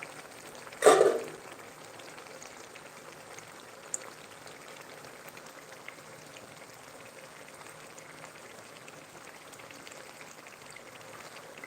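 Food sizzling steadily in a cooking pan, a fine crackling hiss. About a second in there is a short, loud sound.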